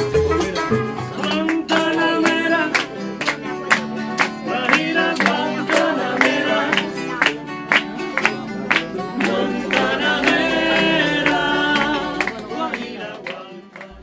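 Acoustic guitars strummed in a steady rhythm, with a voice singing a melody over them twice. The music fades down near the end.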